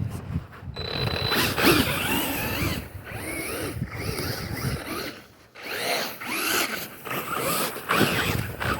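Arrma Big Rock v3 RC monster truck's brushless motor and drivetrain whining in uneven throttle bursts, the pitch rising and falling, with a short break about five seconds in. The truck is running on a 4S battery.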